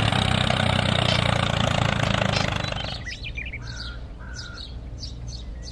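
A motor runs steadily, then cuts off abruptly about three seconds in, giving way to birds chirping in short repeated calls.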